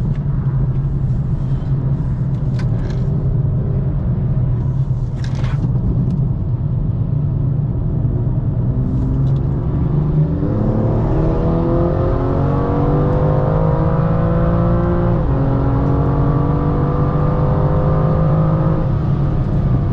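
BMW M2's turbocharged straight-six heard from inside the car, running along under a steady rumble at first, then from about halfway accelerating hard with the pitch climbing. It drops once sharply near three quarters in, an upshift, and pulls up again.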